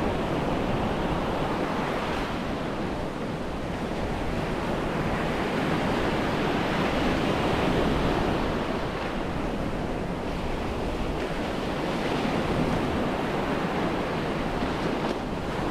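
Surf washing onto a sandy beach, a steady wash of small waves that swells and eases slowly, with wind rumbling on the microphone.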